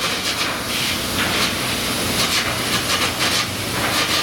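Construction-site banging: rapid, irregular hammering and clatter over a steady hissing noise, loud throughout.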